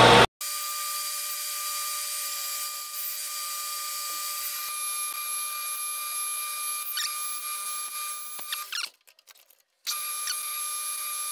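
Metal lathe turning a steel pulley blank with a carbide-insert tool: a steady high whine over a hiss of cutting. It drops out for about a second near the three-quarter mark, then carries on.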